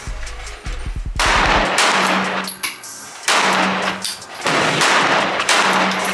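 Four loud gunshots at irregular spacing, the first about a second in, each with a long ringing tail.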